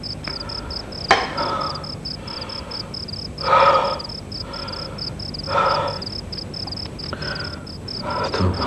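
Night ambience: a cricket chirping in a steady fast rhythm, about four to five chirps a second. Over it come four harsh cawing calls about two seconds apart, and there is a sharp click about a second in.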